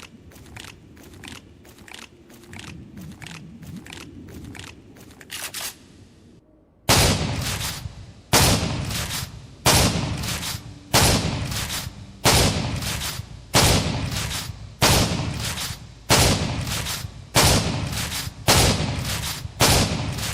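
Gunshot sound effects: first a quick run of light, sharp cracks, about three a second; then, after a short pause about seven seconds in, heavy single gunshots with a deep, echoing tail, roughly one every second and a quarter.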